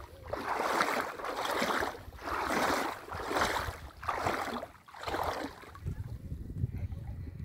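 Footsteps wading through shin-deep river water, a splash with each stride a little under a second apart, about seven in all, stopping about five and a half seconds in; a low rumble follows.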